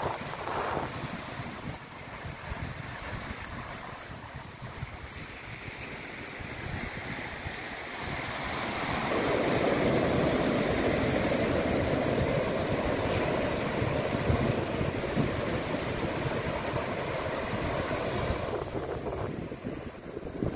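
Pacific ocean surf breaking and washing on the shore: a steady rush of water that swells louder about eight seconds in and eases off near the end. Wind rumbles on the microphone underneath.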